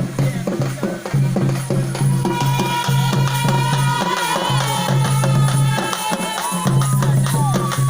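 Traditional folk music with drums and percussion: a melody of sliding, bending notes and one long held note about two to six seconds in, over a low steady drone.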